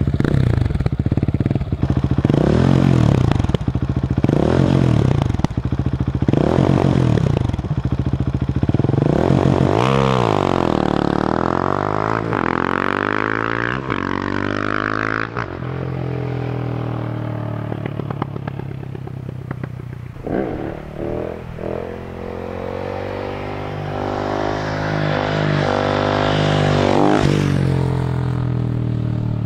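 Husqvarna 701 supermoto's single-cylinder engine revving hard about five times, roughly a second apart, then pulling away with its pitch climbing and falling through a long run. A few sharp exhaust pops come in between, and the engine revs up again near the end.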